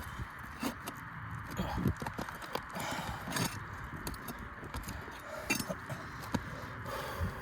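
Scattered, irregular knocks, taps and scrapes of hand work on asphalt roof shingles during a shingle repair, over a steady hiss.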